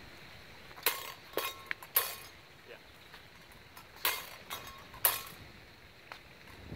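Steel practice rapier blades striking each other in cuts and parries. There is a quick run of four clinks about a second in and three more around four to five seconds in, each with a short metallic ring.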